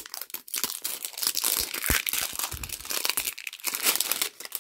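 Shiny printed wrapper being torn and peeled off a plastic mystery toy egg by hand: continuous crinkling and tearing.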